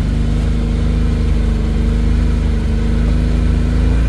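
Side-by-side UTV's engine running at a steady, unchanging speed.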